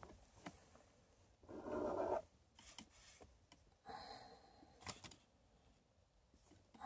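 Faint rustling and rubbing as hands handle a fashion doll and its clothes on a doll stand, with a louder rustle about two seconds in and a light click about five seconds in.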